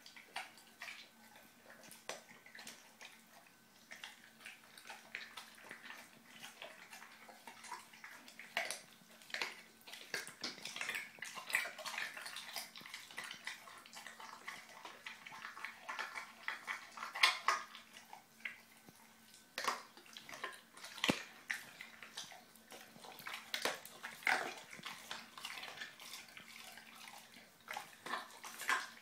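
A bullmastiff–English bull terrier puppy chewing and gnawing a whole raw mackerel: irregular wet smacking and crunching clicks, busiest in the middle stretch.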